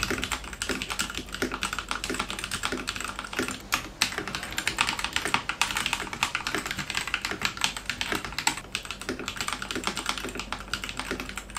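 Fast, continuous typing on a Royal Kludge RK68 mechanical keyboard with its stock RK brown tactile switches: a dense clatter of keystrokes. It is first heard with silicone rubber sheets damping the hollow case, switches about four seconds in to the undamped stock case, and goes back to the damped case near the end. The undamped case is described as usually sounding tinny and hollow.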